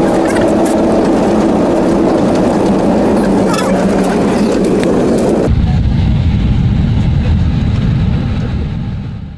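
Bus cabin noise while riding: a steady engine and road drone with a low hum. About five and a half seconds in it changes abruptly to a deeper, low rumble that fades out near the end.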